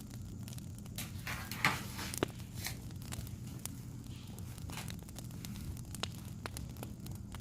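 Wood fire crackling: scattered sharp pops and snaps over a steady low hum, with a brief rustling hiss about a second and a half in.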